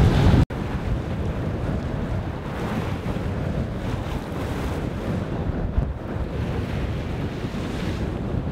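Wind buffeting the microphone and water rushing along the hull of a Hanse 455 sailing yacht under sail in a fresh breeze, a steady rush of noise. The sound drops out for an instant about half a second in.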